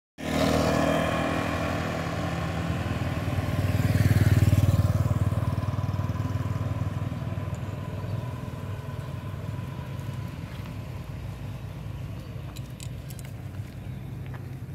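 A motor vehicle's engine running close by. It grows louder to a peak about four seconds in, then slowly fades as it passes and moves away.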